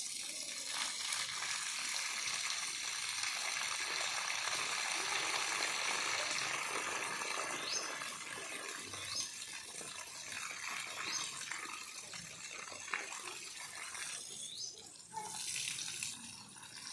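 Water spraying steadily onto plants while they are watered, a continuous hiss that thins out near the end, with a few faint short chirps over it.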